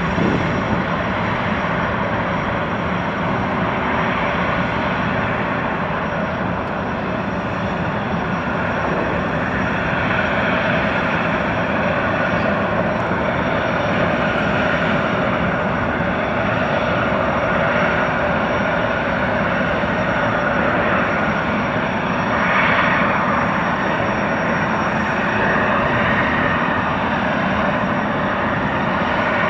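A jetfoil's gas turbine engines running steadily while the craft moves slowly hullborne with its forward foil raised clear of the water. The sound swells briefly about two-thirds of the way through.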